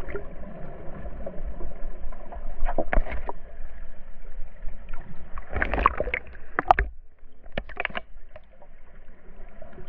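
Muffled underwater water noise heard beneath the surface, a steady low rush with short bursts of bubbling and crackling about three, six and eight seconds in.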